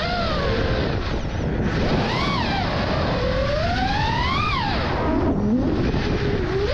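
FPV freestyle quadcopter's brushless motors and propellers whining. The pitch swoops up and down again and again as the throttle is punched and chopped, with a steady rush of wind noise underneath. There is a long climbing rise about three to four seconds in, then a drop to a low growl about five seconds in.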